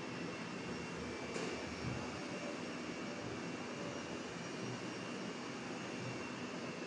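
A room fan running steadily: a constant, even whoosh with no change in pitch or speed.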